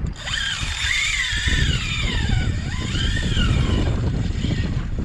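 Spinning reel's drag singing as a hooked tarpon pulls line off: a whine that rises and falls in pitch for about four seconds, over a low rumble of wind on the microphone.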